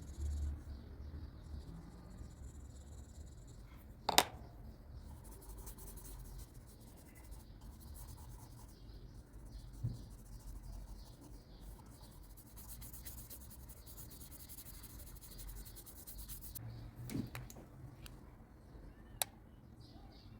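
Pencil scratching and rubbing on paper in soft strokes, with a sharp click about four seconds in and two smaller clicks near the end.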